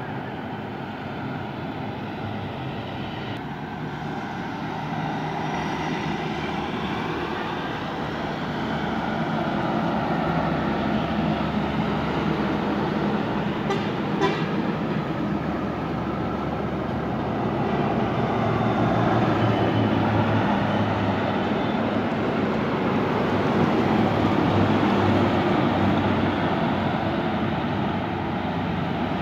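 Highway traffic: heavy trucks and buses passing on the road, their engines and tyres swelling louder as each goes by, with horns sounding at times. A short sharp knock about halfway through.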